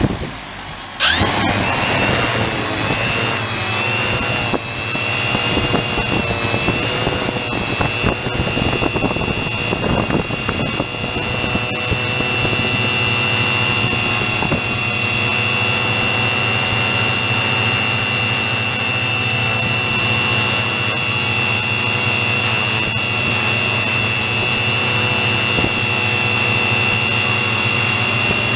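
Small multirotor drone's electric motors and propellers spinning up about a second in, then a steady high-pitched whine as it lifts off and hovers.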